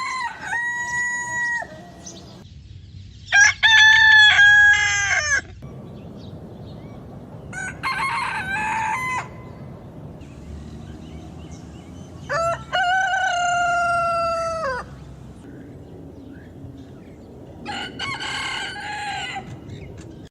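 Roosters crowing, cock-a-doodle-doo, five crows in turn a few seconds apart, each lasting about two seconds. The crows differ from one another in pitch and shape.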